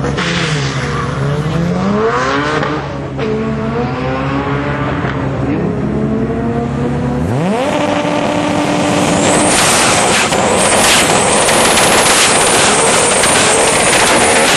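Turbocharged Toyota Supra drag car's straight-six revving up and down in blips, then climbing sharply about seven seconds in and held high. The rear tyres spin in a burnout with a wavering high tyre squeal over the engine.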